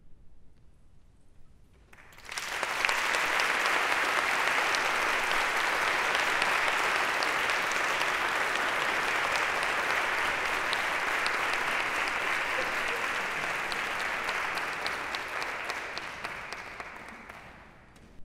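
After a hush of about two seconds, an audience breaks into applause for the end of a choral piece. The clapping holds steady, then fades away near the end.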